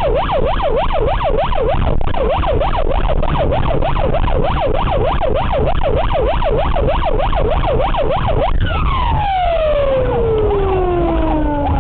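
Police car siren on a fast yelp, sweeping up and down about three times a second. About eight and a half seconds in it changes to one long falling tone, with a low vehicle rumble underneath throughout.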